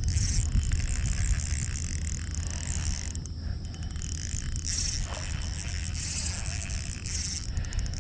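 A spinning reel being cranked against a hooked carp, its whir and clicks over a loud steady rumble of wind on the microphone and a high hiss.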